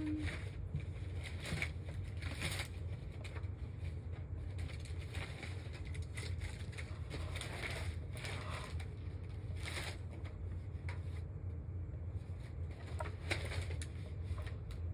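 Baseball cards rustling and clicking as they are leafed through by hand, in short irregular scrapes, over a low steady hum.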